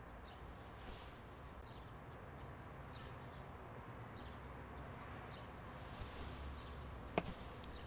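Faint outdoor ambience: a low steady rumble with a small bird chirping briefly about once a second, and a single short click near the end.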